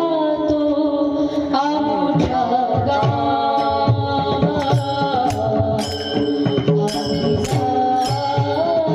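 A woman singing a devotional melody in long, held, ornamented notes, with jingling hand percussion coming in about halfway and keeping a steady beat.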